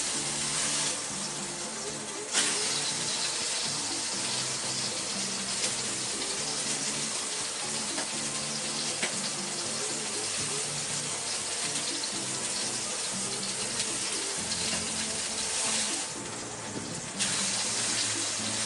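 Pork steaks sizzling in hot fat in a wok: a steady frying hiss. It drops back briefly twice, about a second in and again near the end.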